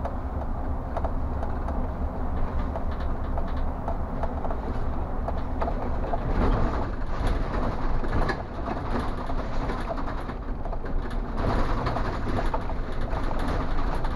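City bus driving along a street, heard from the driver's cab: the steady low drone of the engine and road noise, with small clicks and rattles, getting a little louder for a few seconds around the middle.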